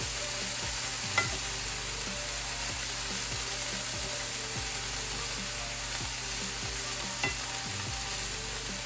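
Mixed vegetables sizzling steadily in hot oil in a frying pan while a wooden spatula stirs them, with two sharp knocks of the spatula on the pan, about a second in and near the end.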